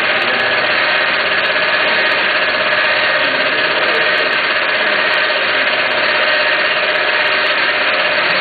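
Milling-head drive of a facing attachment on a planing machine, running steadily with a constant hum and a steady tone while the facing head spins a single-point tool over a bore.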